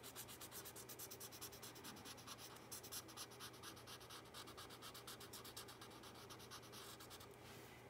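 Felt-tip marker scratching faintly on paper in quick, repeated back-and-forth colouring strokes.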